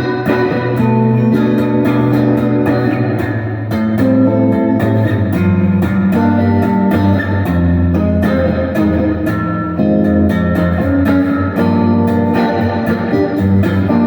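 Donner DST200 electric guitar on two pickups, played through a Sonicake Blues Screamer overdrive pedal in its "dumble mode": a continuous run of picked single notes and chords with held notes and a boosted bass.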